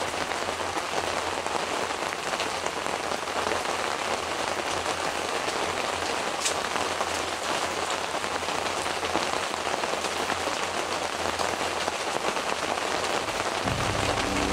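Steady rain falling on a canopy tent's fabric roof, an even patter with no let-up. Low music comes in near the end.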